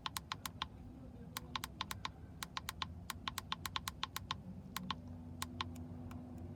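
Button presses on a handheld battery load tester's keypad: many small sharp clicks in quick runs, as the 540 cold-cranking-amp rating is stepped in.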